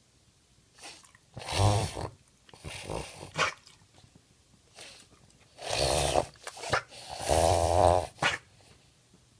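A dog reverse sneezing: spells of rapid, forceful inward breaths through the nose, each lasting up to about a second, with pauses between them.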